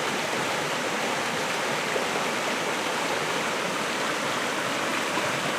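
Shallow river flowing fast over rocks, a steady rushing of water.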